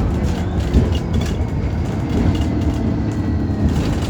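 ADL Enviro 300 single-deck bus running, its engine giving a steady low rumble with light rattles and clicks throughout.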